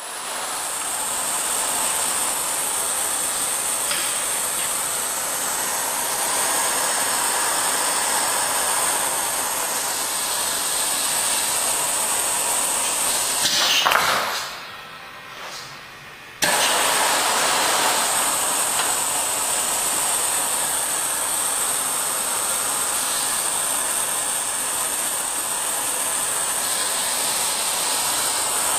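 Steady loud air hiss from the vacuum supply of a manual vacuum lifter with a multi-cup Squid head. About fourteen seconds in it rises briefly, then drops away for two or three seconds and cuts back in abruptly.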